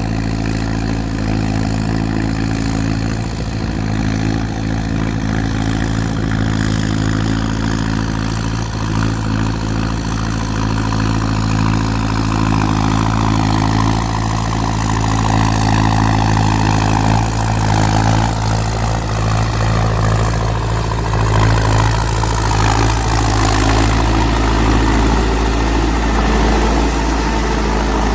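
Engine of a home-built rice-paddy puddling vehicle running steadily, growing a little louder and rougher for a stretch about two-thirds of the way through.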